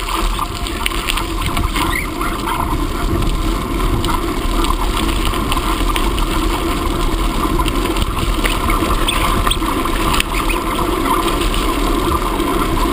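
Bicycle riding along with a dog running on a Walky Dog leash: a steady rolling noise with small rattles and clicks.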